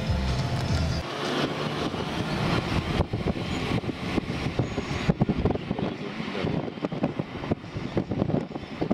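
Music ends about a second in, giving way to the road and engine noise of a car driving through city streets, heard from inside the car, with irregular wind buffeting on the microphone.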